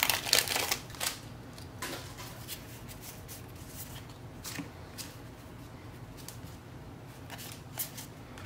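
Foil booster-pack wrapper crinkling for about the first second as the Magic: The Gathering cards are pulled out, then a few soft flicks and slides of the cards being fanned through by hand.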